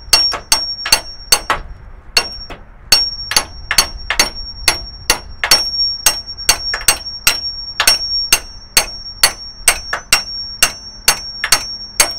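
Hammer blows on steel in a steady run, about two a second, with a brief pause about two seconds in; a high metallic ring hangs on between strikes. A stuck leaf-spring fastener is being pounded out through a pickle fork.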